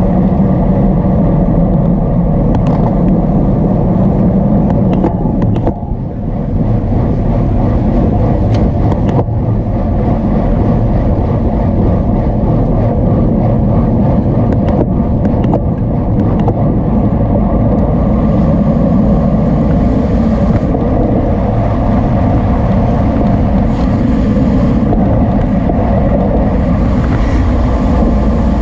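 Loud, steady wind rush and rumble on the microphone of a camera riding on a racing bicycle at race speed, dipping briefly about six seconds in.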